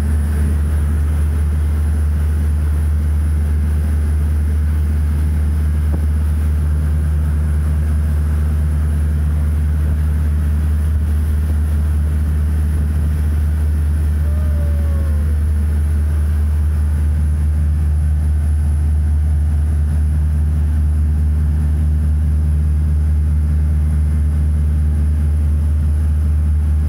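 Boat engine running steadily at cruising speed, a loud, even low drone heard from inside the wheelhouse along with the hull moving through the water.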